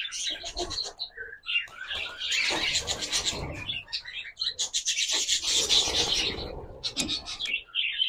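A flock of budgerigars chattering and screeching, with bursts of wing-flapping and rustling as the birds are caught by hand from their colony cage. The commotion is loudest in two stretches of a second or two each.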